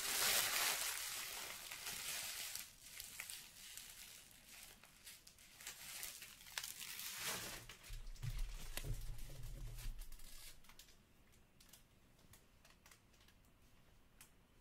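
Trading card pack wrapper crinkling and tearing open, loudest in the first couple of seconds. About eight seconds in, a pile of cards is swept off the counter by hand with soft thumps, followed by faint light clicks.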